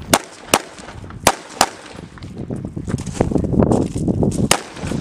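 Rifle fire from an M16-pattern 5.56 mm service rifle: four quick semi-automatic shots in the first second and a half, in two pairs, then a single shot near the end. A rushing noise fills the stretch between them.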